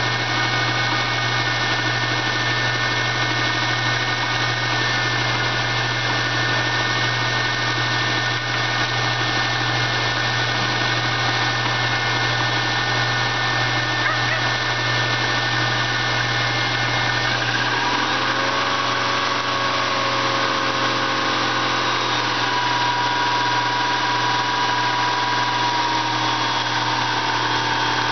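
2000 Subaru Legacy's flat-four engine running at idle, steady and even. About two-thirds of the way through, the pitch of its whine shifts and some tones fall away over a few seconds.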